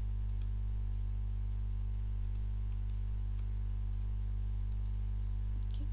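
Steady electrical mains hum, a low buzz at about 50 Hz and its multiples, with a couple of faint clicks.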